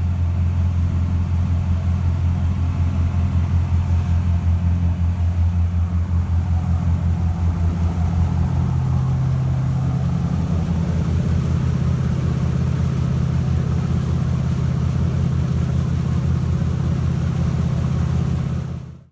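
A Bruno & Stillman 35 lobster yacht's inboard engine running steadily underway, a low, pulsing drone. Its tone shifts slightly about eight seconds in, and it cuts off suddenly at the end.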